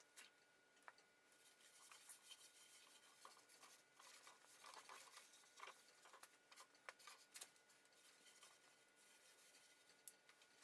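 Near silence, with faint scattered rubbing and light clicks.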